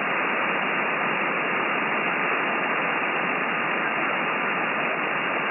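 Steady band noise from a FLEX-1500 software-defined radio's receiver on single sideband between transmissions: an even hiss confined to the narrow voice passband, with no clear signal over it.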